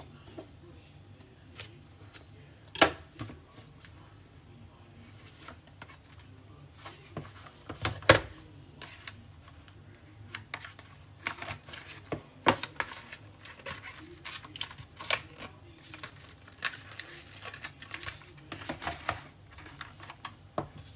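Cardboard packaging being handled: boxes and inserts knocked and set down, with two loud knocks about three and eight seconds in, then a run of lighter clicks and rustles.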